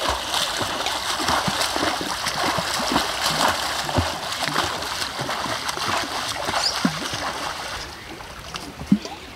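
A swimmer's front-crawl arm strokes churning and splashing the water of a pool in a steady run of irregular splashes. The splashing dies down about eight seconds in as the swimmer stops.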